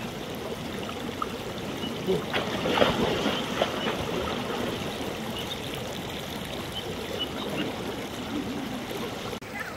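A small river running: a steady rush of flowing water, with a few brief louder sounds about two to four seconds in.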